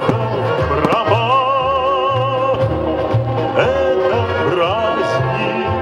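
A song: a singer holds long notes with a wide vibrato over a steady, repeating bass line.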